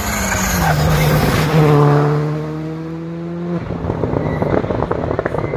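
Rally car passing at speed, its engine note peaking and dropping in pitch as it goes by. About three and a half seconds in the engine note cuts, and a rapid string of sharp crackling pops from the exhaust follows.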